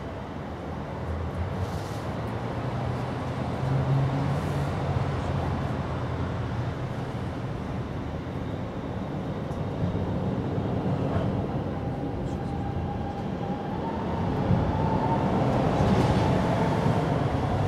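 Steady low mechanical rumble of a passing vehicle, growing louder over the stretch, with a thin tone that comes in about twelve seconds in and rises slightly near the end.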